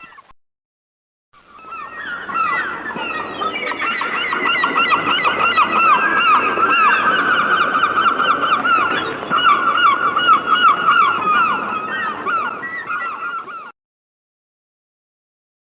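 A large flock of birds calling all at once, a dense chorus of many overlapping short, quick calls. It begins about a second in and cuts off abruptly a couple of seconds before the end.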